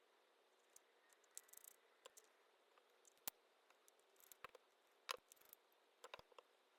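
Faint, scattered clicks and light scrapes of small phone parts and precision tools being handled on a workbench, with the sharpest clicks about three seconds in and again about five seconds in.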